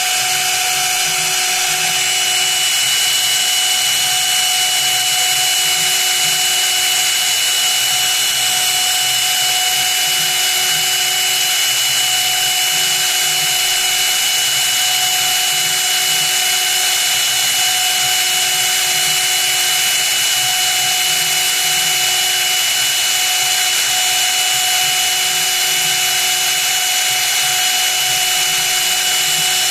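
Small high-speed CNC spindle running steadily while machining a copper-clad circuit board: a constant high whine over a hiss of cutting, holding level throughout.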